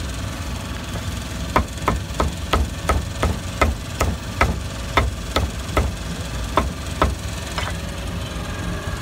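Cleaver chopping meat on a chopping block: a steady run of sharp chops, about two to three a second, from about a second and a half in until about seven seconds in. A steady low engine rumble runs underneath.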